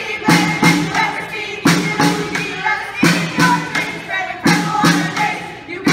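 A group of students chanting in unison over a marching snare drum, which is struck in a repeating pattern of short groups of beats.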